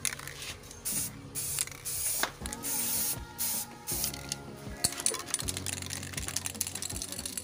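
Aerosol can of clear coat hissing in short bursts, on and off several times, as a first coat is sprayed over carbon-fibre-stickered plastic parts.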